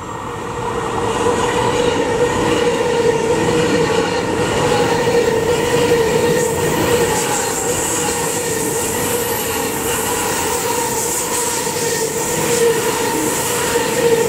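ICE 3 high-speed electric train passing close by at speed. The rush of wheel and air noise swells during the first second as it arrives, then holds as steady rolling noise with a held whine while the cars go past.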